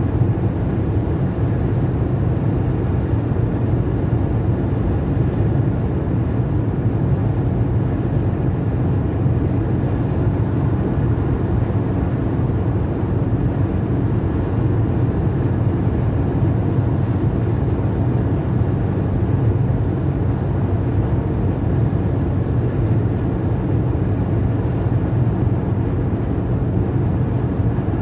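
Steady road noise inside a car's cabin while cruising on a motorway: a constant low rumble of tyres and engine.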